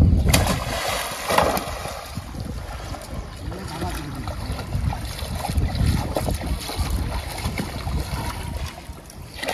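Wind buffeting the microphone outdoors, a low uneven rumble, with faint voices in the background.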